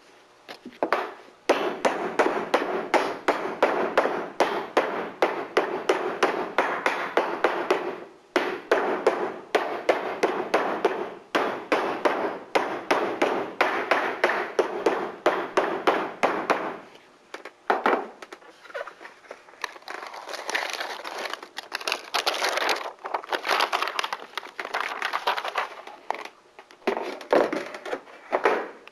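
Corrugated metal roofing panel edges being cut off to chamfer them: a fast run of sharp metallic clips, several a second, with short breaks and a longer pause about two-thirds through, then sparser cutting.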